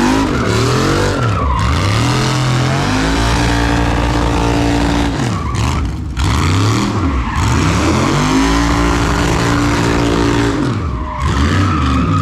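Texas Speed 416ci LS3 V8 revving hard, rising and falling in several long swells, while the rear tires spin and squeal in a burnout.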